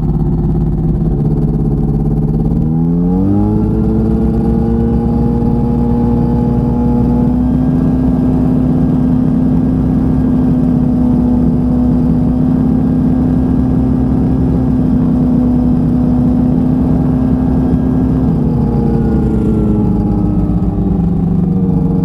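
Light aircraft piston engine and propeller during a pre-takeoff run-up, heard through a lav mic inside a helmet. About three seconds in it revs up from idle and holds steady at the higher RPM for about fifteen seconds, then drops back to idle near the end.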